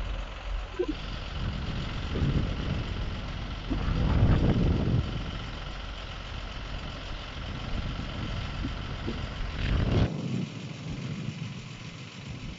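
Flatbed recovery truck's engine running to drive its truck-mounted hydraulic crane as it lifts a car onto the bed, with a steady whine over a low rumble that surges about four seconds in. The low rumble drops away suddenly about ten seconds in.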